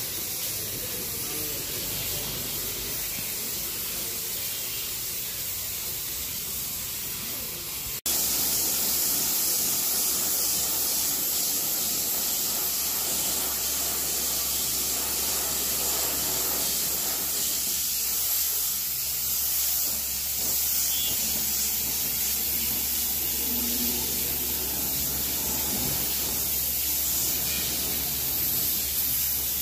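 Compressed-air paint spray gun hissing steadily as it sprays paint onto a motorcycle fuel tank. The hiss breaks off about eight seconds in and comes back louder, with a low steady hum beneath it.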